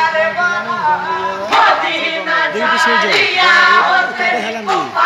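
A group of men singing a jarigan, the Bengali Muharram lament song, together in loud voices whose pitch slides up and down, with crowd noise mixed in.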